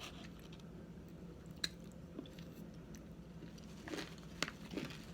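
Someone chewing a mouthful of dry arrowroot starch: scattered soft crunching clicks, one sharp click a bit over a second and a half in and a cluster of them near the end.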